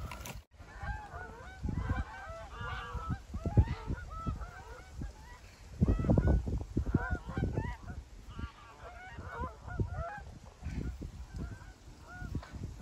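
A flock of wild geese flying overhead, calling with many short overlapping honks that thin out toward the end. Low rumbling gusts of wind on the microphone, strongest about halfway through.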